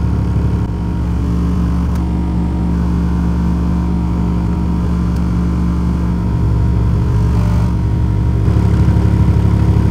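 12-inch Timpano TPT-2500 subwoofer playing a steady, loud low bass test tone, driven near its 1,250 W RMS rating during a five-minute power-handling test that leaves the voice coil hot.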